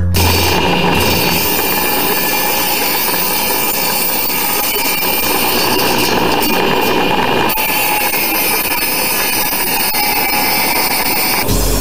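Table saw running, its spinning blade cutting through a wooden board with a steady, loud, dense whine.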